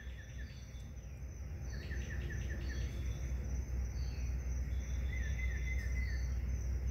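Night insects calling: high steady trilling, with short runs of rapid chirps repeating every few seconds, over a low steady hum.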